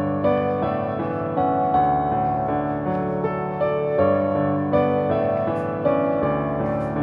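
Background music: a gentle keyboard melody, one note following another.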